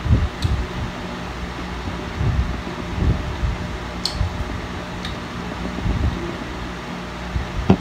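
Electric stand fan running with a steady whir and faint hum. Faint clicks and low bumps come through it, with a sharper knock near the end.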